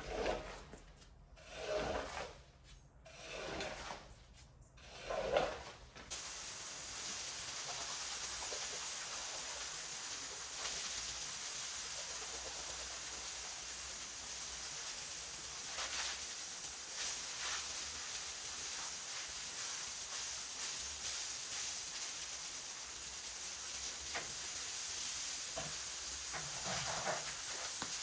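A squeegee dragged in about four strokes over a wet, foamy rug; then, after a cut about six seconds in, the steady hiss of a pressure-washer jet spraying water over the rug.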